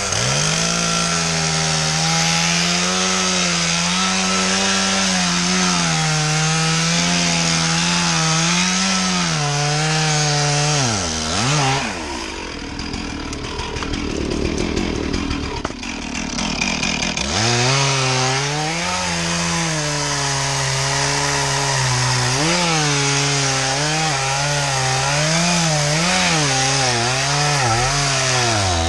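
Stihl two-stroke chainsaw cutting into an ash trunk, its engine note wavering as the chain loads up in the wood. About eleven seconds in the note sags and gives way to a rougher sound for a few seconds before the steady cutting note returns.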